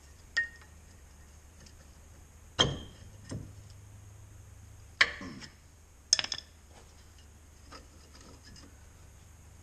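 A front brake pad being worked loose and pulled out of a four-piston caliper: a few sharp metal clinks and knocks, the loudest about two and a half and five seconds in.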